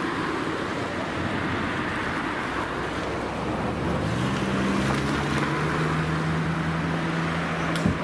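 A car engine running with steady road and wind noise; about halfway through, a steady low engine hum comes in and holds, and a short click sounds near the end.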